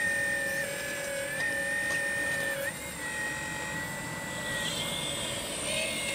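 Hydraulic pump motor of a scale RC CAT 6015B excavator running with a steady high whine whose pitch steps down and back up several times as the boom and bucket dig into a dirt and gravel pile under changing load.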